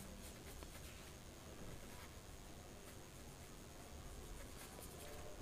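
Faint brushing of a paintbrush spreading thick paint across paper, soft and scratchy.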